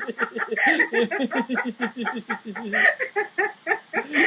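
Two people laughing in quick, rhythmic ha-ha pulses: deliberate laughter-yoga laughter, laughing on purpose rather than at a joke.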